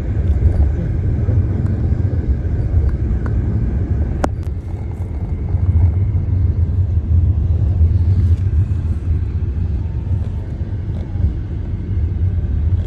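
Steady low rumble of a moving road vehicle, its engine and tyres on the road heard from inside. A single sharp click about four seconds in.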